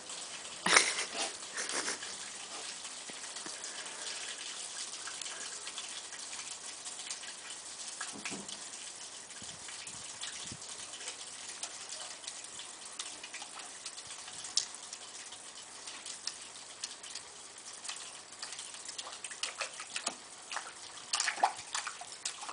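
Golden retriever digging and pawing in a muddy puddle: wet splashes and squelches of mud and water, with louder bursts about a second in and again near the end.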